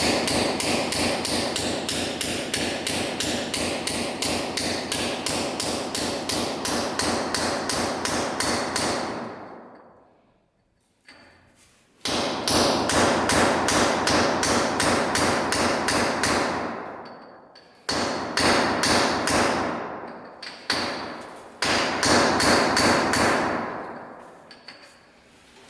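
Power tool hammering in fast, evenly repeated strokes during lighting-track installation work. It comes in three long runs, each winding down over a second or so and leaving a faint metallic ring.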